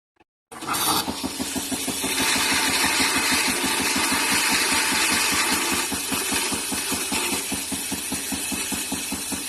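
Nespresso machine running: a loud hiss with a fast, even pulsing underneath. It starts about half a second in and cuts off at the end.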